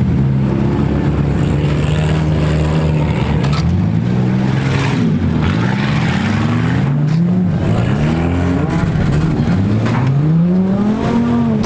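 Several small car engines revving hard, their pitch climbing and falling again and again and overlapping, with a few sharp knocks of metal impacts between the demolition derby cars.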